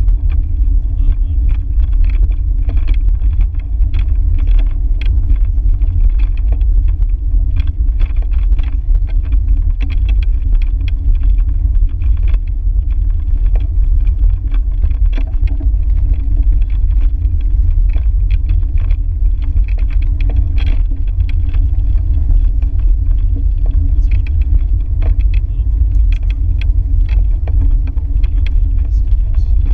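Wind rumbling steadily on the microphone of a camera mounted on a moving bicycle, with frequent small clicks and rattles as the bike rolls along the road.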